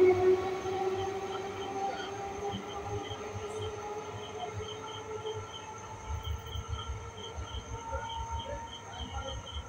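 A train pulling away and receding; its rumble and steady whine fade over the first few seconds. Crickets chirp in a steady repeated pattern throughout.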